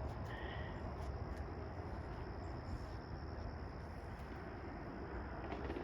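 Outdoor pond-side ambience: a steady high insect drone, like crickets, over low fluctuating wind rumble on the microphone.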